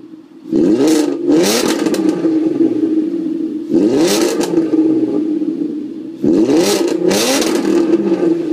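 VW Golf VR6 24v 2.8-litre engine heard through a custom Powerflow stainless steel non-resonated exhaust with a 100-cell sports cat, idling and revved in three throttle blips about three seconds apart, dropping back to idle between them.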